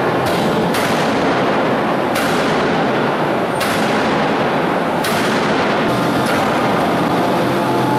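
Hydraulic open-die forging hammer striking a red-hot steel billet: about half a dozen sharp blows, roughly one every second and a half, over steady loud shop noise.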